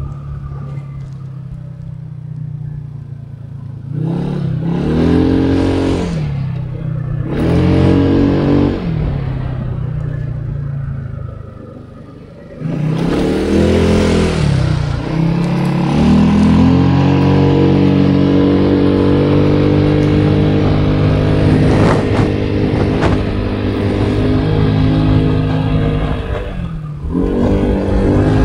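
A vehicle engine pulling away and changing gear: its pitch rises and falls three times in the first half, then it runs steadily at speed, with another change near the end.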